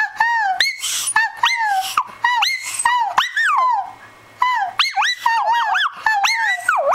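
Shih Tzu 'singing': a run of short, wavering howl-like whines that slide up and down in pitch, one after another, with a brief pause about four seconds in.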